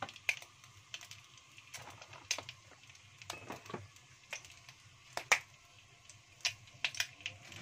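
Hot cooking oil in a wok popping and crackling irregularly as small bits of chopped shallot and garlic fry in it, the loudest pop a little past the middle.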